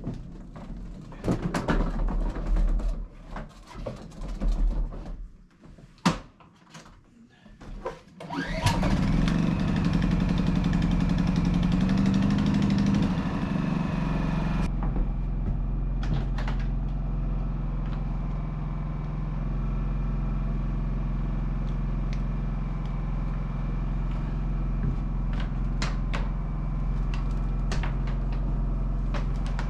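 A few knocks and clatter, then an engine starts about a third of the way in and keeps running steadily; about halfway through its sound turns abruptly duller, as if shut off behind a door.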